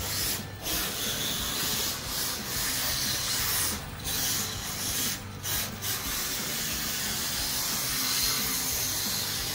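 Micro RC drift car on a 3D-printed ZRD-1 chassis sliding around a smooth track: a steady hissing scrub, broken by a few short gaps near the start and again about four and five seconds in.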